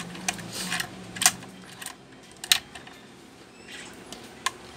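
A few sharp clicks and taps of hard plastic, the loudest about a second in and again about two and a half seconds in, as a black plastic clamp mount is handled and adjusted. A faint low hum sits under the first two seconds.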